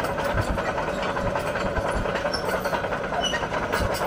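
Case CX130B tracked excavator's diesel engine running steadily, with irregular low knocks and clanks from the machine.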